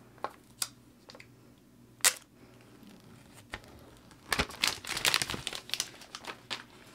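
Plastic shrink wrap being torn and peeled off an iPhone 12 Pro Max box: a few separate sharp crackles, then a dense run of crinkling from about four seconds in.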